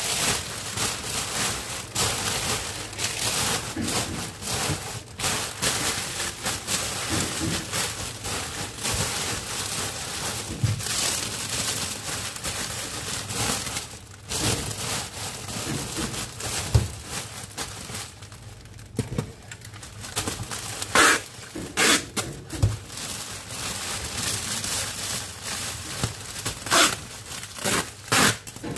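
Clear plastic cellophane wrap crinkling and crackling as it is gathered and folded by hand around a tray. There are a few louder, sharp crackles in the second half.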